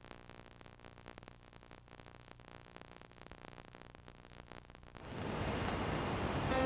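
Faint hiss with a low hum, then about five seconds in a rushing noise like rain fades in and swells steadily louder.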